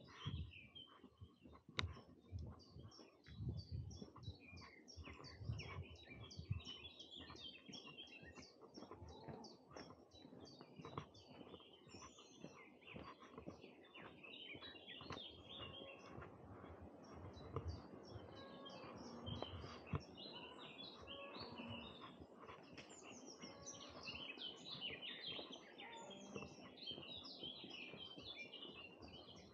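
Faint chorus of small songbirds chirping and singing at once, with many overlapping short calls throughout. Soft low thuds come through during the first several seconds.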